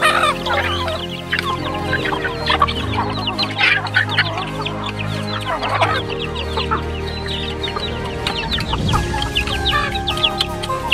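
Chickens clucking in many short calls, over background music with sustained low notes.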